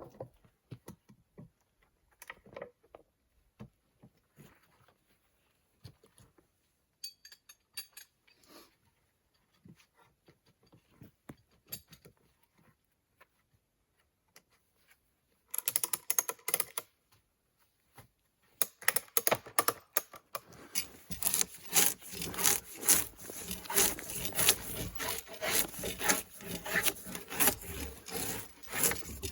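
Scattered light knocks and taps, then, from about halfway, a steady run of rapid rasping strokes of a handsaw cutting through wood.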